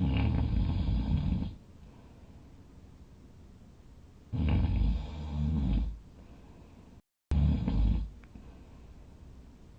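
A sleeping person snoring loudly: three long snores, each about one to one and a half seconds, spaced three to four seconds apart, the second in two swells. The sound drops out completely for a moment just before the third.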